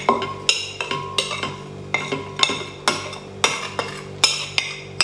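Spoon tapping and scraping on a plate to knock powder off it, making a run of sharp ringing clinks about two to three a second, over a steady low hum.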